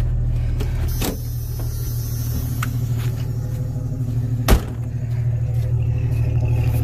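An engine idling with a steady low hum, with a few light clicks and one sharp knock about four and a half seconds in.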